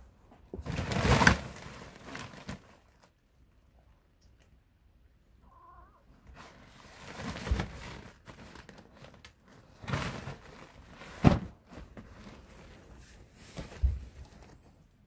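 Nylon fabric of a pop-up cat tunnel rustling in several bursts as cats tussle and paw inside and against it. Soft thumps come with it, the sharpest a knock about eleven seconds in.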